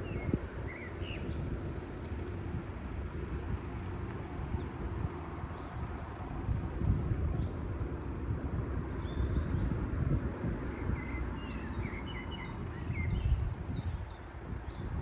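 Wind rumbling on the microphone, with small birds singing. A quick run of high chirping notes comes in the last few seconds.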